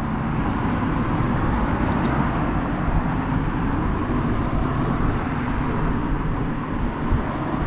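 Steady low rumble of outdoor background noise, with a couple of faint clicks about two seconds in.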